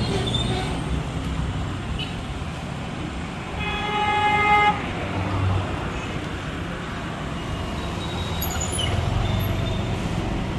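Street traffic rumbling, with one vehicle horn sounding a steady honk for about a second near the middle.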